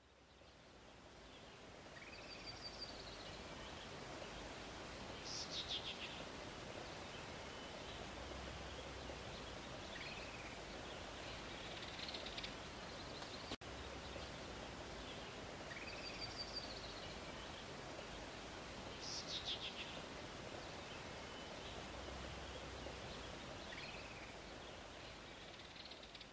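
Outdoor ambience of a steady high hiss with scattered short bird chirps and trills. The same sequence of calls repeats after about 14 seconds, and there is one sharp click about halfway through.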